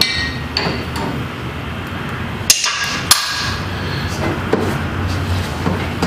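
Metal tool clanking against the mower's steel frame while the oil drain plug is tightened: a few light clicks, then two sharp ringing metallic clanks about half a second apart midway.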